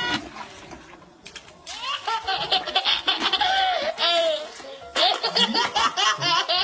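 A plucked-string note ringing out at the start. Then high-pitched laughter in short, quick, repeated bursts from about two seconds in, pausing briefly and starting again about five seconds in.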